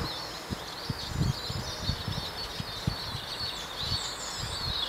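Small songbirds chirping and twittering continuously in woodland, with a few soft, irregular low thumps underneath.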